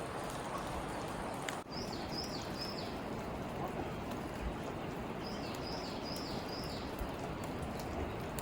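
A small bird gives a high, falling chirp three times in quick succession, then four more a few seconds later, over a steady rushing background noise.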